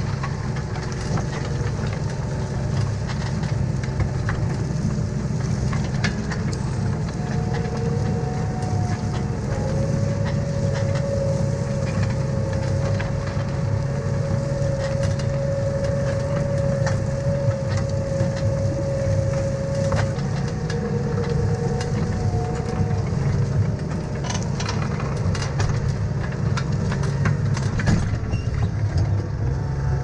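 Mouldboard plough pulled through grass sward by a tractor, heard close from the plough frame: the tractor engine drones steadily under load while the plough bodies tear and turn the turf, with scattered clicks and cracks from soil and stones. A thin steady whine joins in for about fifteen seconds in the middle.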